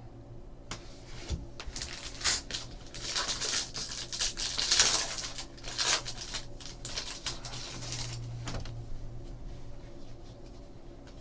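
Trading-card pack being torn open and its cards handled: a run of short scratchy rustles and crinkles over several seconds, busiest in the middle.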